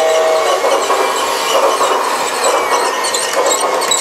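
Battery-operated G-scale toy Christmas train rolling past close by, its wheels and small motor making a steady, noisy rattle on the track.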